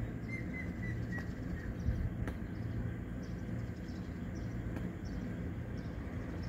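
Outdoor ambience with a steady low rumble. A bird gives a quick run of about five short chirps in the first second or so.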